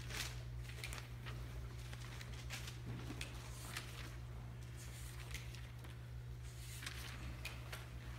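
Thin Bible pages being leafed through, a scatter of soft paper flicks and rustles, over a steady low electrical hum.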